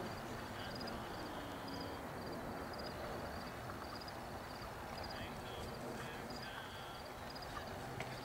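Quiet field ambience: a steady low outdoor rumble with insects chirping high and even, about two short chirps a second.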